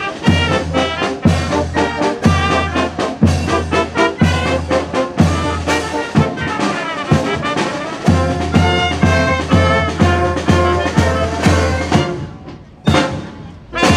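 Student brass band, with trombone, horns and saxophone, playing a tune over a steady beat. The music stops near the end.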